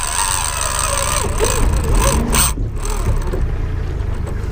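Mechanical ticking and whirring of a big-game lever-drag fishing reel working under load with a bluefin tuna on the line, over the steady low running of the boat's engine.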